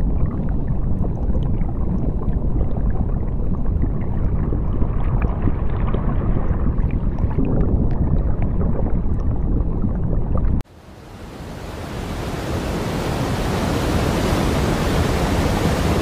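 A steady, muffled low rumble of moving water. About ten and a half seconds in it cuts off sharply and gives way to a large waterfall's rushing, a full, even hiss that fades up and holds.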